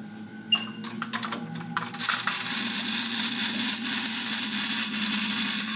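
Wind-up toy robot's clockwork gearbox running with a steady whirr, after a loud click and a run of quick clicks in the first two seconds.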